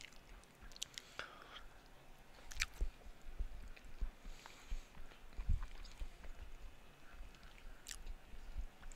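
Close-miked chewing and mouth sounds of a person eating a soft casserole, with a few scattered light clicks of a spoon in a plastic food container.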